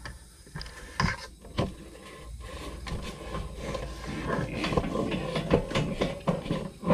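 Handling noise of a camera mount being moved and adjusted: separate clicks and knocks, then a busier stretch of rubbing and rattling from about three and a half seconds in.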